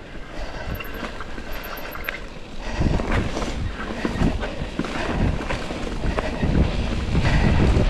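Mountain bike rolling over leaf-covered dirt singletrack: tyre crunch and the bike rattling and knocking over roots and rocks, with wind rumbling on the microphone. It gets much louder, with heavier rumble and knocks, from about three seconds in.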